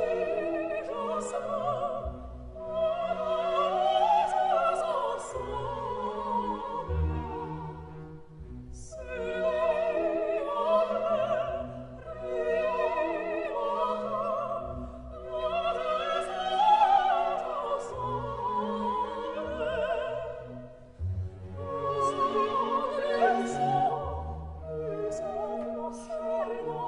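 Background music: operatic singing with vibrato over orchestral accompaniment, in long phrases that swell and fall.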